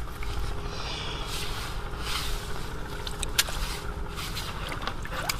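Wind rumbling on the microphone, with rustling noise and a few sharp clicks, two of them about two seconds apart near the end.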